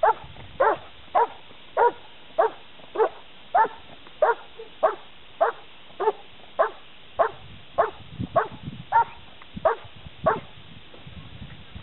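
German shepherd barking steadily at a protection helper standing in a blind: a rhythmic hold-and-bark of about eighteen loud, evenly spaced barks, nearly two a second, which stops about ten seconds in.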